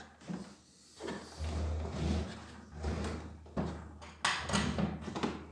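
Kärcher pressure washer's plastic housing being handled and stood upright on a table: rumbling bumps and scrapes, then a few sharp knocks in the second half.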